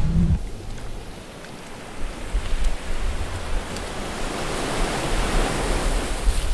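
Ocean surf breaking and washing on a beach: a steady rushing that grows louder about two seconds in.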